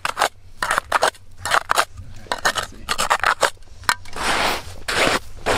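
Hand ice auger's blades cutting and scraping into lake ice: a run of short, crunching scrapes, then a longer unbroken scrape from about four seconds in.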